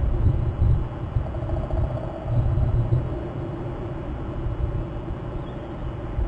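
Outdoor ambience: a low, uneven rumble that is strongest in the first second, with a faint steady hum from about one to three seconds in.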